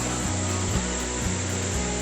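Background music with a steady bass line that changes note about every half second.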